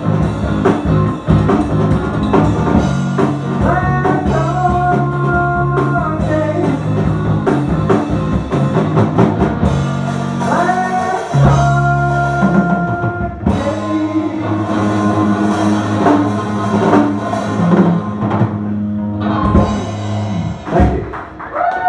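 Live rock band playing a song on electric guitar, electric bass and drum kit.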